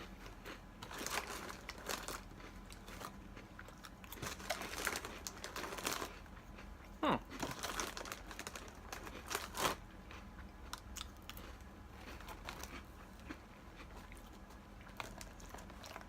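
A person chewing Earth Balance vegan cheddar-flavour square crackers, crunching in bursts that thin out toward the end.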